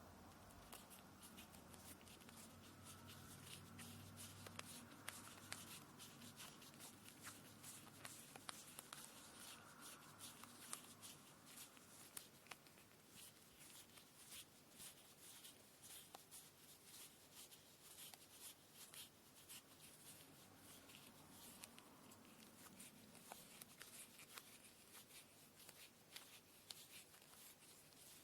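Faint, continuous rustling and fine crackling ticks of hands handling cotton thread while preparing a kumihimo braid.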